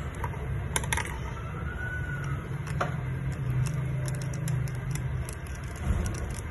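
A clear straw stirring iced coffee in a glass, clinking lightly against the glass and the ice cubes, with a run of quick clinks in the second half. A steady low hum runs underneath.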